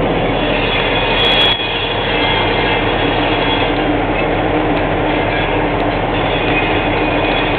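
Freight train of empty cars rolling slowly across a road crossing, a steady rumble and rattle of wheels on the rails, with a faint high wheel squeal about a second in. Heard through the cab of a vehicle waiting at the crossing.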